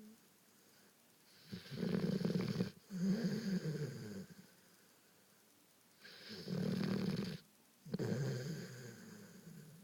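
Golden retriever honking away in its sleep: two loud snoring breaths about four and a half seconds apart, each in two parts with a short break between.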